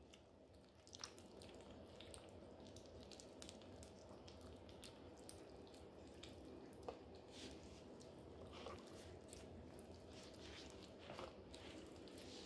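Faint wet smacking and chewing of several Maine Coon kittens eating wet cat food from a shared plate, with many small clicks throughout.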